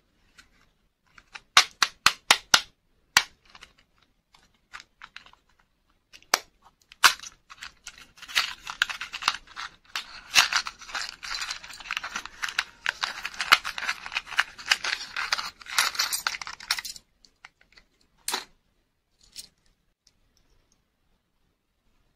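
A small cardboard candy-and-toy box being handled and opened. First comes a quick run of sharp clicks and taps. Then, from about eight seconds in, there are some nine seconds of dense crinkling and tearing of packaging, followed by a few light taps as the small plastic toy comes out.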